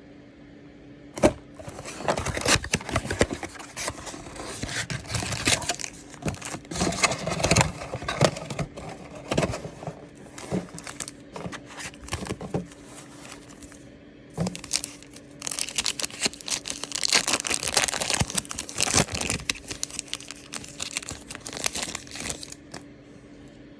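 Plastic and paper packaging of a trading card blaster box being crinkled and torn open, in irregular bursts of rustling with sharp snaps. The sharpest snap comes about a second in.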